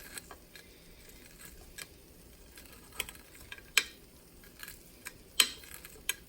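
Cutlery and dishes being handled: scattered light clicks and taps, the sharpest about four and five and a half seconds in.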